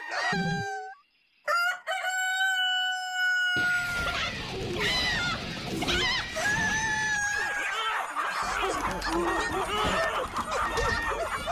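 Cartoon chickens: a long crowing call held for about two seconds near the start, then a whole flock clucking and squawking at once in a noisy commotion.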